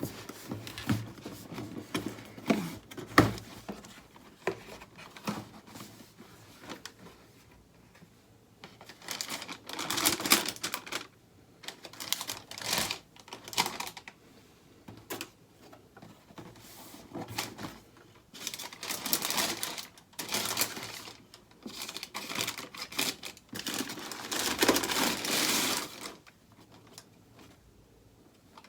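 Sneaker packaging being handled: paper rustling and crinkling in several bursts of a second or two, with scattered clicks and knocks of the cardboard box and shoes.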